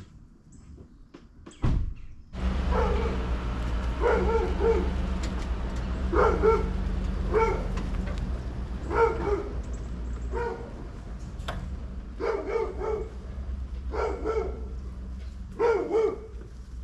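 A dog barking repeatedly, about a dozen barks a second or so apart. Underneath is a pickup truck's engine, which starts up about two seconds in after a single thud and then runs steadily as the truck pulls away towing a boat trailer.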